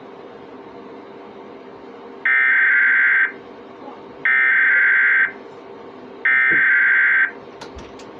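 Emergency Alert System SAME header: three identical bursts of shrill, warbling digital data tone, each about a second long and a second apart, over a low steady hum. This coded header announces the tornado warning before the attention tone.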